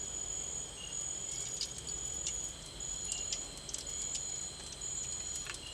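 Forest insects calling in high, steady trills that start and stop in runs of about a second, with a few light clicks.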